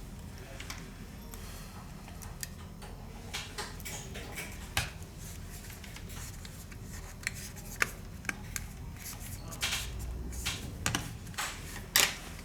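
Scattered small clicks and taps of tools and phone parts being handled on a repair bench, growing more frequent in the second half, with the loudest sharp click near the end, over a steady low hum.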